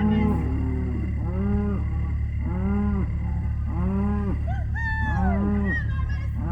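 Red Angus cattle mooing and bawling over and over, short calls about once a second from several animals, some overlapping, over a steady low rumble.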